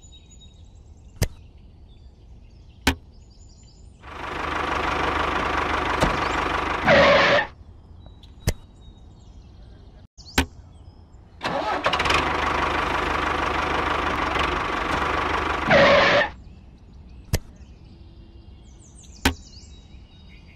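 A small engine starts and runs for a few seconds, ends with a short louder burst and stops. This happens twice, and sharp single clicks come in the quiet gaps.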